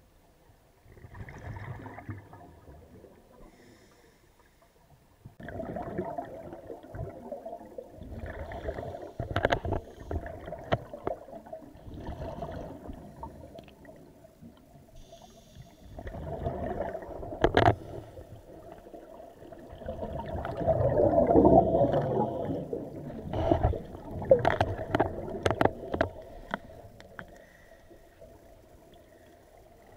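Scuba diver breathing through a regulator, recorded underwater: exhaled air bubbling and gurgling in bursts every few seconds, about six in all, with a few sharp clicks over a faint steady hum.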